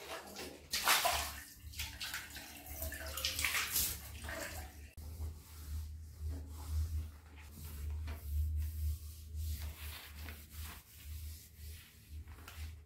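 A cloth in a rubber-gloved hand wiping and scrubbing wet bathroom tiles in irregular swishing strokes, with a low steady hum underneath.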